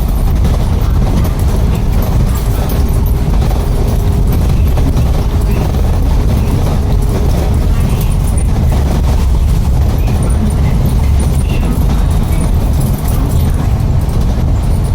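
Heavy diesel machinery, such as a hydraulic excavator, running steadily with a deep, continuous rumble.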